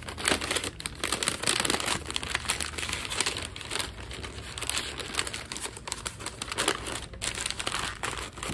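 Pink butcher paper crinkling and rustling in a busy run of sharp crackles as hands fold and wrap it around a cooked tri-tip roast.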